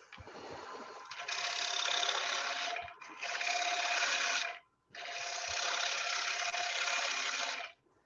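Turning tool cutting the rim of a spinning maple burl platter on a wood lathe: a hissing shear of the cut. It comes in three passes of two to three seconds each, with short breaks between them.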